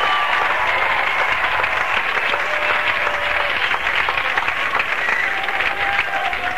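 Large concert audience applauding steadily, with short high tones from the crowd rising over the clapping now and then.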